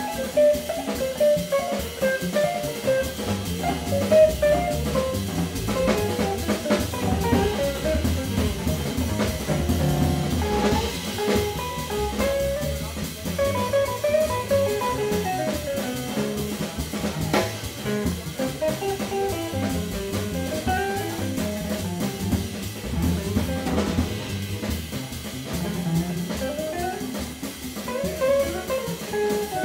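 Live bebop jazz at a fast tempo: a rapid melodic line over walking double bass and a swinging drum kit, played by a quartet of tenor saxophone, archtop guitar, double bass and drums.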